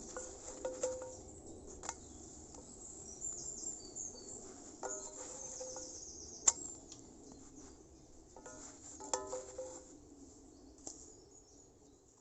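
Cooking over a small twig stove: scattered light metal clinks and ringing taps of utensils on a pan, the sharpest click about six and a half seconds in, over a steady low hiss and high chirping.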